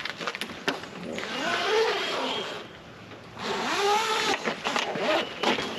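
Retractable awning being pulled out from its roller along the roof edge of a cargo-trailer camper. There are two stretches of rushing, squeaking noise with a short pause between them, and scattered clicks and knocks of the metal arms before and after.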